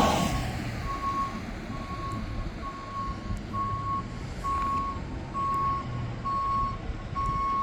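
A garbage truck's back-up alarm beeping steadily at one pitch, a little more than once a second, over the low running of its diesel engine. A louder rush of passing traffic fades away in the first second.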